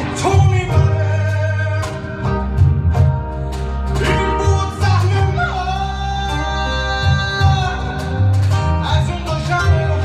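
Live acoustic band playing: a man sings long, wavering held notes over strummed acoustic guitar, bass guitar and a steady cajón beat.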